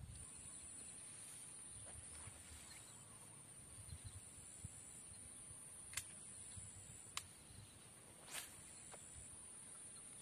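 Faint outdoor ambience: a steady high-pitched hum, with a few sharp clicks about six to eight seconds in.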